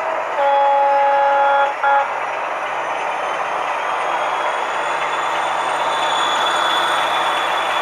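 Model diesel locomotive's DCC sound decoder sounding the horn: a low note held for about a second and a half, then a short blip. The sound of the diesel engine running follows, with a faint whine slowly rising in pitch.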